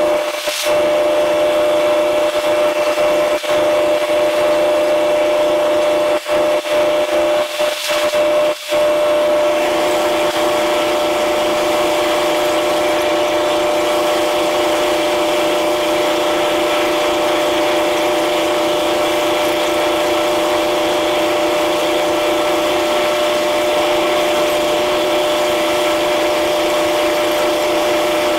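Steady mechanical hum of a car ferry's onboard machinery heard from the open deck: a constant drone with a fixed pitch and an even rush of noise above it. It cuts out briefly a few times in the first several seconds.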